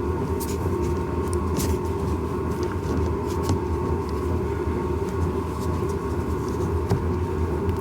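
A steady low mechanical rumble with a thin steady tone above it, and a few faint clicks.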